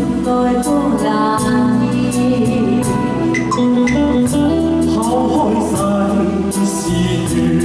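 A male and a female singer performing a Cantonese pop duet over a live band with electric guitar and keyboards, the two voices taking turns.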